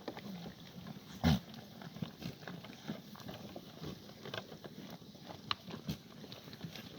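Black goats moving about a farm yard: scattered short clicks and knocks of hooves and shuffling, with one louder knock about a second in.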